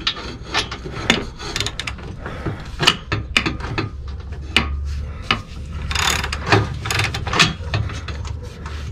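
Hand ratchet wrench clicking in irregular runs as a bolt is turned, with a few louder metallic knocks of the tool. A low steady hum runs underneath.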